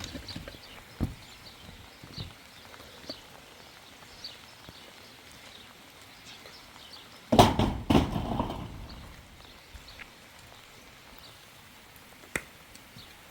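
Scattered sharp knocks and clicks, with one loud clattering burst about seven seconds in that lasts about a second. Faint high chirps repeat underneath.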